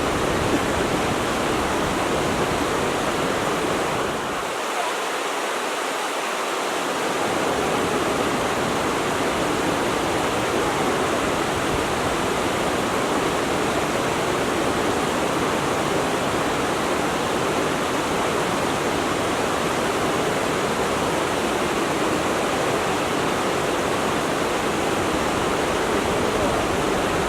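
Stream water flowing and splashing with a steady rushing sound; the low rumble briefly drops away for a couple of seconds about five seconds in.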